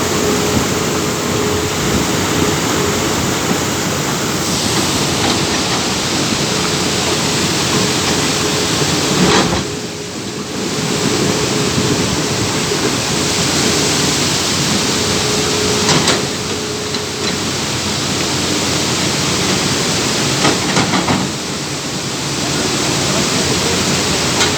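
Tata Hitachi hydraulic excavator working, its engine and hydraulics giving a steady, loud rushing drone with a held tone that fades in and out. The sound eases briefly about ten seconds in and twice more later.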